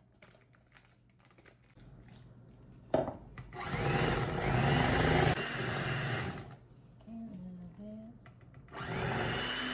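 Electric mixer beating cream cheese and vanilla in a bowl: after a click about three seconds in, it runs loudly for about three seconds, stops, and starts again near the end.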